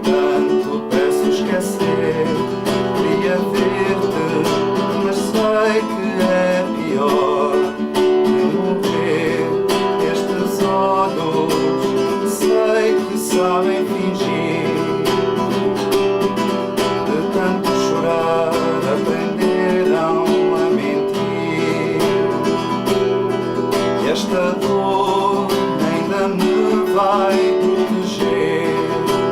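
Acoustic guitar played solo, chords strummed and picked in a steady instrumental passage.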